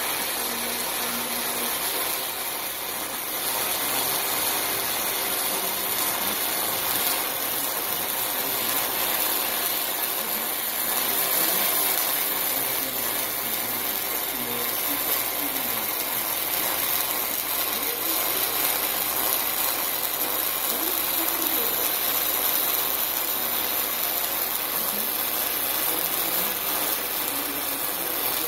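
Continuous MIG welding arc sizzling as sheet metal is welded, a steady hiss with no clear breaks.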